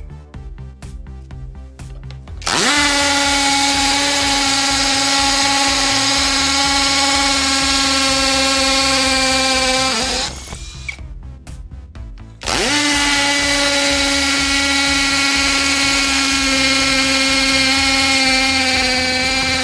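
Cordless drill, its battery rebuilt with Samsung 18650 cells and set to second speed, drilling into a concrete paver block with a masonry bit. It runs twice, each time spinning up with a quick rising whine, then holding a steady whine for about seven seconds before stopping.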